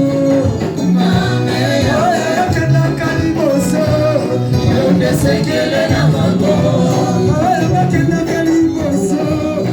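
Worship music: a sung melody over a band with a stepping bass line and light cymbal strokes.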